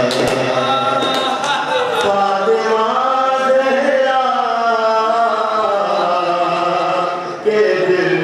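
Men's voices chanting a noha, a Shia mourning lament, in long melodic lines that rise and fall in pitch, with a short break about seven seconds in.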